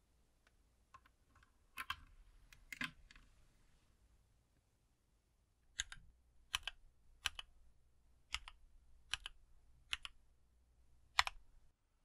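A USB-C cable clicking into a mechanical keyboard, then seven single keystrokes, a little under a second apart, on keys with Gateron Silent Yellow silent linear switches in a modded MonstarGear NINJA87 ALU XO V1 with an aluminium plate.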